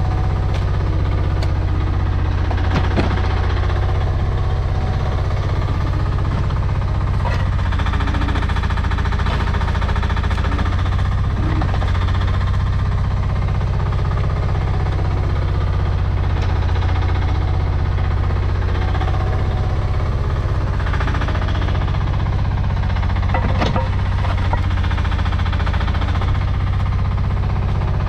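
Mini excavator engine running steadily under load while digging, with scattered knocks and scrapes from the bucket working hard clay.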